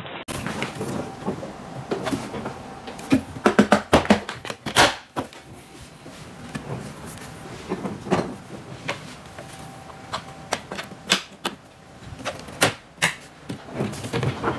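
Irregular metallic clicks and knocks from handling a rack flight case with aluminium edging and metal latches, the hardware clattering as the case is turned and its latches are fingered. The clicks come in clusters, busiest about four seconds in and again near the end.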